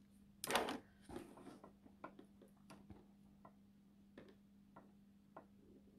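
Scattered light clicks and taps at irregular spacing, with a short rustle about half a second in, over a faint steady electrical hum.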